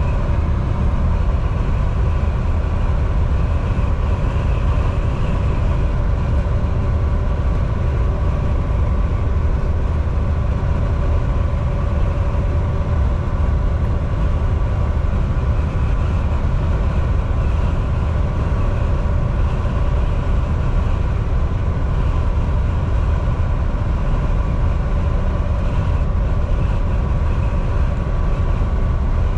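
Volvo VNL 760 semi truck cruising at steady highway speed: a deep, even engine and road rumble with a faint steady whine above it.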